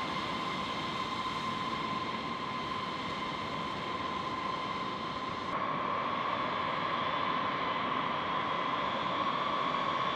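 B-52H bomber's TF33 turbofan jet engines running on the ground: a steady high whine over a rushing hiss. The whine shifts slightly higher about five and a half seconds in.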